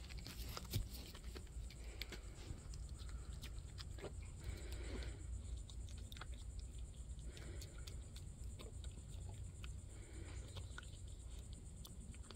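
A deer chewing grapes bitten straight from the bunch, with irregular soft crunches and clicks as it bites and chews.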